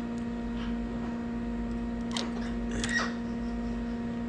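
Steady low electrical hum, with a couple of short clicks and crackles about two and three seconds in as eggshell and membrane are picked at by hand.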